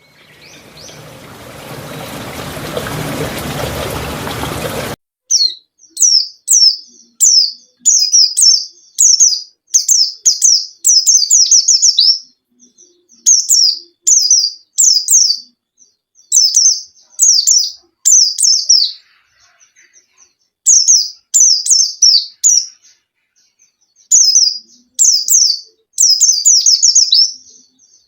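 A rushing noise swells for about five seconds and cuts off abruptly. Then a white-eye (pleci, Zosterops) sings in bursts of quick, high chirps, each sliding downward. It is lure song played to set a pleci that is slow to sing into song.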